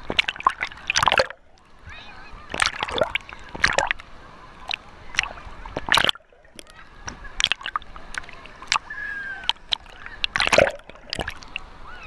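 Water splashing and sloshing against a waterproof action camera held at the surface of a pool, in sharp irregular splashes over a steady wash. The sound drops to a dull hush twice, about one and a half and six seconds in, as the camera goes under.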